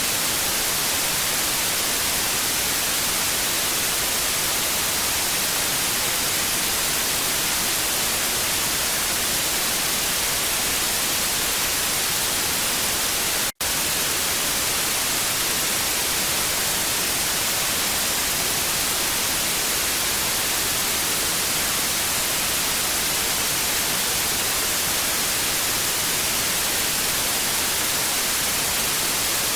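Steady, hissing TV static, an even rush of noise brightest in the treble. It cuts out for a split second about halfway through, then carries on unchanged.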